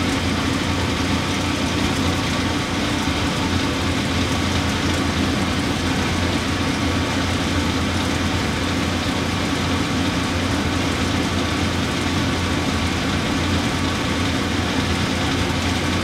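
Steady hum and whir of a running motor, unchanging throughout.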